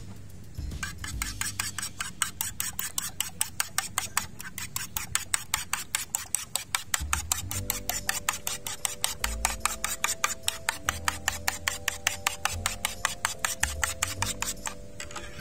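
Metal fork beating raw eggs in a plate, its tines clicking against the plate in a fast, even rhythm of about five or six strokes a second. The beating starts about half a second in and stops near the end.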